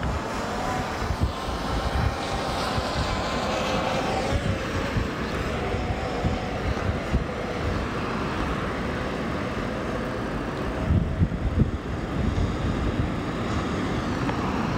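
Wind rumbling on the microphone, with the faint steady hum of a Hubsan Zino 2 quadcopter's propellers overhead that fades away about ten seconds in as the drone flies off over the sea.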